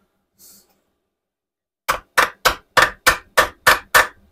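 Ratchet wrench clicking in a quick, even run of about nine sharp clicks, roughly four a second, starting about two seconds in, as a 10 mm crankcase bolt is backed out.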